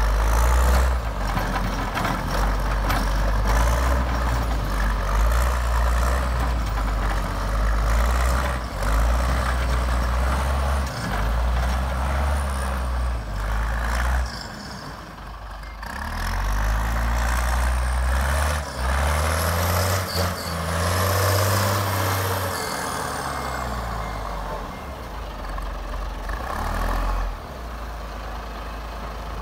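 Vammas RG 181 grader's straight-piped Valmet 612 inline-six diesel running and working, its engine speed rising and falling. About halfway through it drops back for a moment, then revs up again, and it runs quieter near the end.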